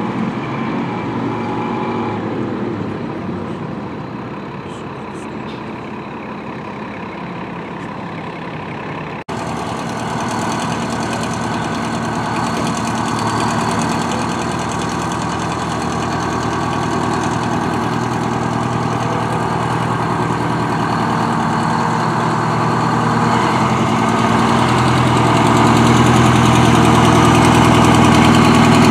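Fire truck engines running at idle. About nine seconds in the sound jumps to a nearer engine: a 1967 American LaFrance pumper idling as it rolls slowly past, growing steadily louder toward the end.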